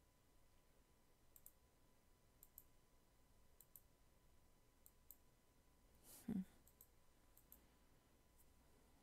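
Faint computer mouse clicks in close pairs, about one pair a second, and a single short dull knock about six seconds in that is louder than the clicks.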